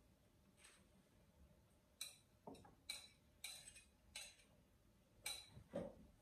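Knife tapping and scraping against a plate as diced tomatoes are pushed off it into a bowl: about eight faint, separate clicks and scrapes.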